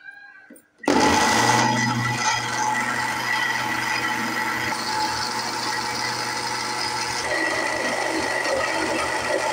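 Electric blender switched on about a second in and running steadily, grinding fresh mint leaves and green chillies into a wet green chutney.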